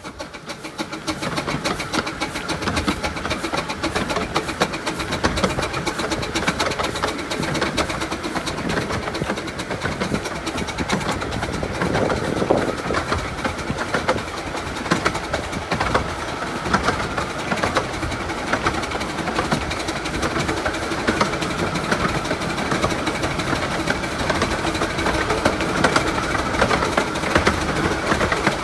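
15-inch gauge narrow-gauge steam trains running past, with a continuous rumble and clatter of wheels and carriages on the track.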